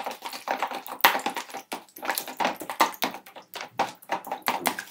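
Metal spoon stirring wet ingredients (butter, egg, yogurt, oil and water) in a plastic bowl, clicking and knocking against the bowl in a quick, irregular run of several strokes a second.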